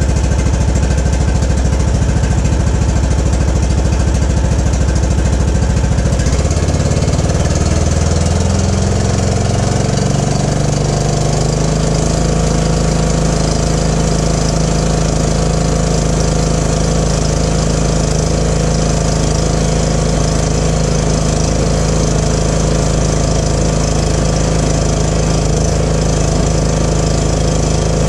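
John Deere LA105 lawn tractor's Briggs & Stratton single-cylinder engine running on a newly fitted ignition coil. It idles low at first, then about six seconds in the throttle is opened and the engine climbs over several seconds to a steady high speed, running smoothly: it sounds great.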